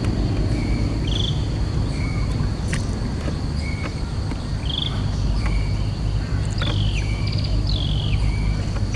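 Riverside outdoor ambience: a steady high insect drone with short bird chirps repeating every second or so, over a steady low rumble.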